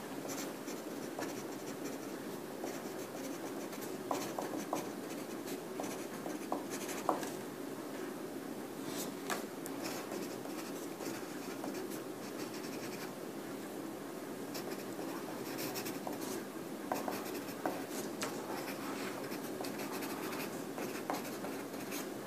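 Pencil scratching on paper in continuous writing strokes, with a few small sharper ticks, over a steady low room hum.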